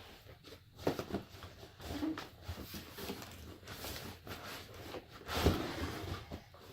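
Packaging being handled and pulled off a ride-on toy's plastic wheels: irregular rustling and light knocks, with a louder rustle about five and a half seconds in.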